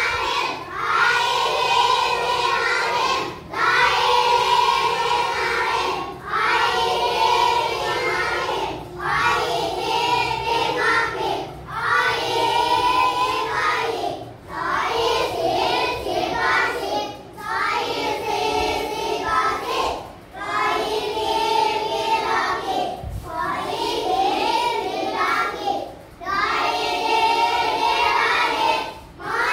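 A class of young children chanting together in unison, in a sing-song recitation of a Thai spelling-and-reading drill. The chant comes in a steady run of phrases about three seconds long with short breaks between them.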